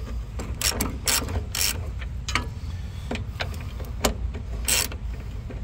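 Hand ratchet clicking in short, uneven runs as it turns out the rear axle mounting bolts on a VW Polo Mk2F.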